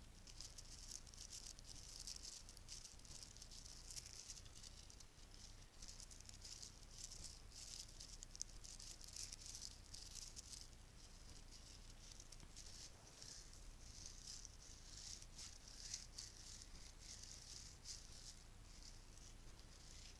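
Bracelets rattled and jingled softly close to the microphone: a continuous, fine stream of small clicks with no pauses.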